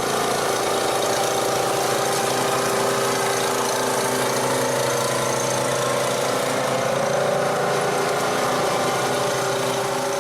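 Sadko GCS-254 small two-stroke chainsaw engine running steadily at an even pitch, with no revving.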